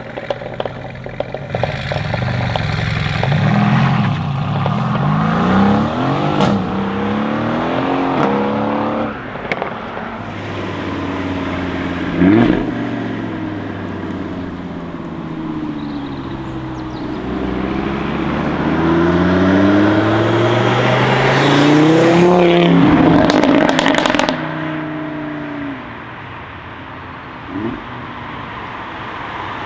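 Audi RS3 8V's turbocharged five-cylinder engine accelerating hard and revving. Its pitch climbs through the gears and falls again on lifting off. Sharp exhaust pops and crackles come about twelve seconds in and in a cluster around twenty-three seconds.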